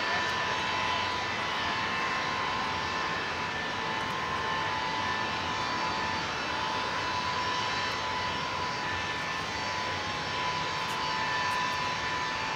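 Ilyushin Il-62 airliner taxiing, its rear-mounted jet engines running steadily: a constant whine over a wash of engine noise.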